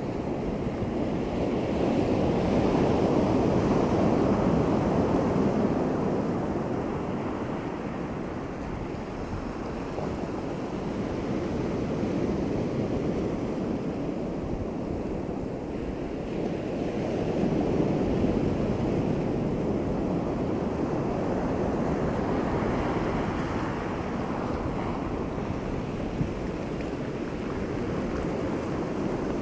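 Sea surf breaking and washing in over a flat rock and sand shore: a steady rush of water that swells and eases over several seconds at a time, loudest in the first few seconds.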